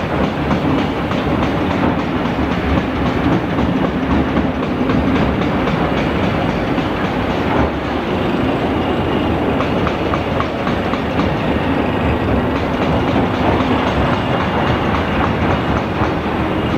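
Caterpillar wheel loader working, its diesel engine running under load with a continuous metallic clatter and rattle.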